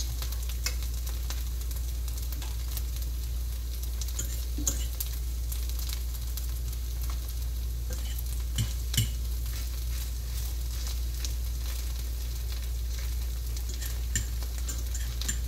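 A mashed potato and onion patty frying in a pan with a steady sizzle, while a fork presses and shapes it, giving a few sharp clicks against the pan. A steady low hum runs underneath.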